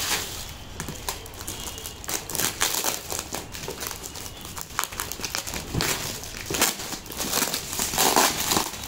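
Brown plastic packing tape and wrapping being torn and crinkled off a cardboard parcel by hand: irregular crackling and ripping, louder in the last few seconds.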